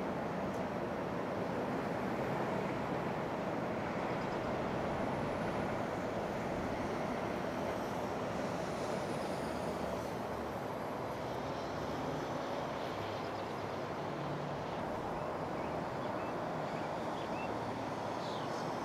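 Steady, even outdoor rushing noise.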